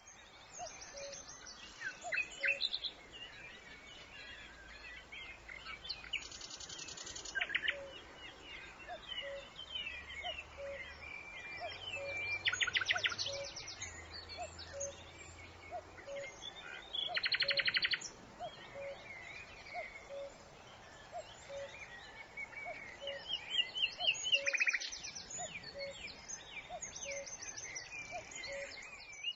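Several songbirds singing and calling together, with bursts of rapid trills every few seconds among shorter chirps and whistles. A faint, evenly repeated low pip sounds about once a second underneath.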